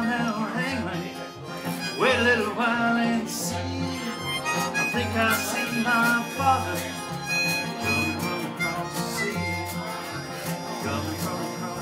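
Live acoustic band music: a harmonica played into the microphone, bending its notes, over a strummed acoustic guitar and a low bass note pulsing about once a second.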